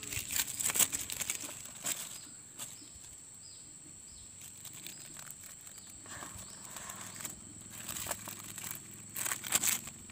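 Clear plastic grafting tape crinkling and rustling as it is stretched and wrapped around a seedling's graft by hand, in bursts near the start and again toward the end. A steady high whine runs underneath.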